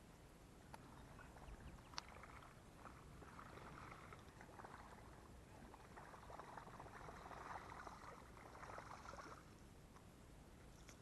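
Faint water noise in soft swells a second or two long, with a few light clicks.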